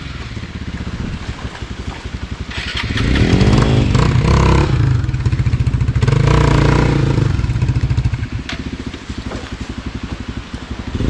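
Motorcycle engine running at idle, revving up and falling back twice, once around three to five seconds in and again around six to eight seconds in.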